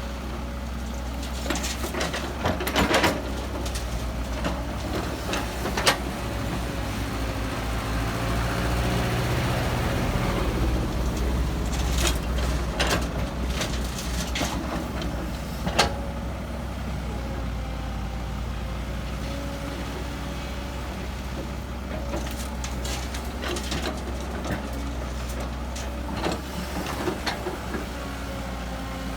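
Heavy diesel earthmoving machinery running steadily, with the engine working harder for a few seconds near the middle. Metal clanks and knocks come at intervals, two of them sharp and loud.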